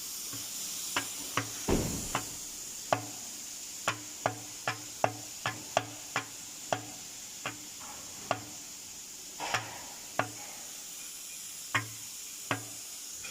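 Irregular sharp knocks from a Ford Transit van, about twenty of them at uneven intervals, each with a dull low thud under the click, over a steady hiss. This is the knock the van's owner wanted listened to.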